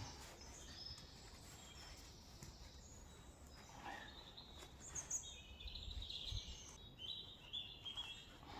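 Faint birdsong: a small bird's high chirps and short trills, busiest in the second half, over a low steady background with a few faint clicks.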